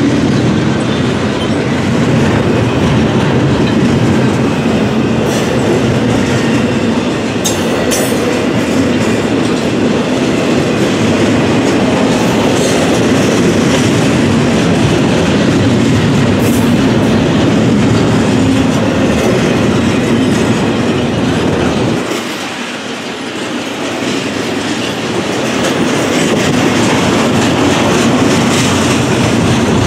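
Freight train rolling past at close range, its wheels clattering over the rail joints in a steady loud rumble that dips briefly about two-thirds through.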